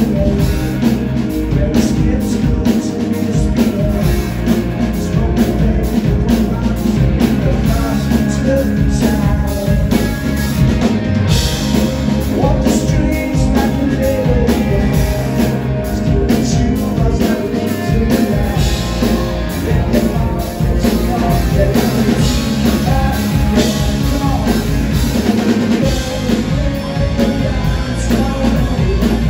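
Loud live rock band playing: electric guitars and a drum kit, with a man singing lead vocals.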